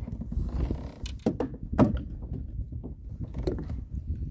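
Handling noise from fishing gear in a kayak: a few sharp knocks and creaks as the rod and landing net are worked to bring a fish aboard, over a low steady rumble.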